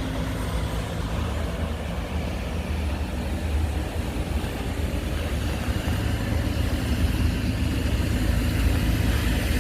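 Strong gusty wind buffeting the microphone: a steady low rumble that swells and eases slightly.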